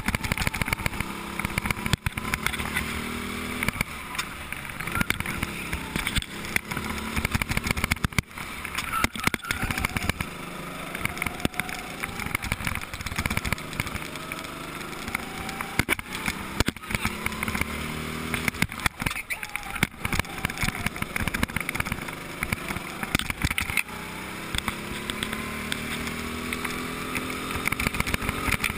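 Go-kart engine heard from on board, revving up and easing off again and again as the kart drives round the track, with frequent knocks and rattles throughout.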